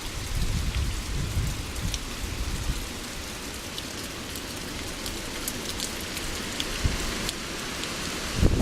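Hurricane rain falling steadily, a constant hiss with individual drops clicking close by. A low rumble runs through the first few seconds, eases off, and swells again near the end.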